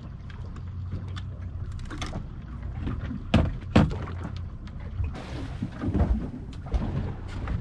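Boat engine idling with a steady low hum, under knocks and clunks of fishing gear being handled on deck. The loudest are two sharp knocks about three and a half seconds in, as the rod is worked in its gunwale rod holder.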